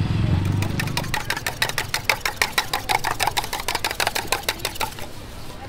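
Metal spoon beating egg in a stainless-steel cup: a fast, even clinking of metal on metal, about nine strikes a second, which stops shortly before the end. A low hum fades out during the first second.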